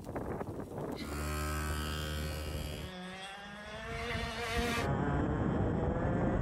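Racing go-kart engine, first running at a steady pitch, then revving with rising pitch from about three seconds in.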